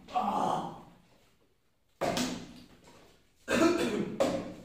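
A man coughing hard in a few separate bursts, with pauses between them.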